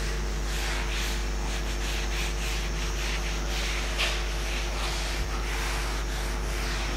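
Whiteboard duster wiping marker writing off a whiteboard in a run of quick, irregular swishing strokes, one a little louder about four seconds in. A steady low hum runs underneath.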